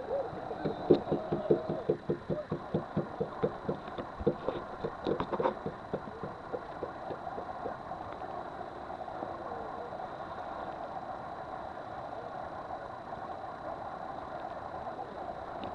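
Boat engine running steadily. Over the first six seconds there is a quick run of thumps, about four a second.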